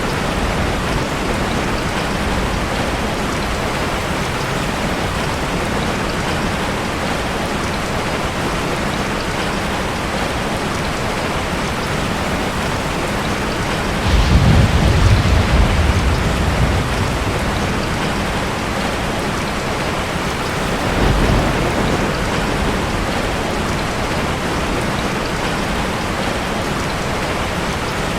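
Steady rain falling, with thunder rumbling twice: a louder low roll about halfway through lasting a few seconds, and a fainter one some seconds later.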